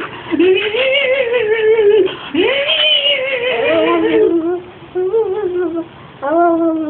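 A young child making airplane noises with her voice: long hummed tones that rise and fall in pitch with a wavering wobble, several in a row, the last a steadier held tone near the end.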